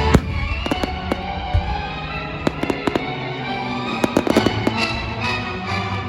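Aerial fireworks bursting in a string of sharp cracks and pops, bunched together about four seconds in, over music with sustained tones.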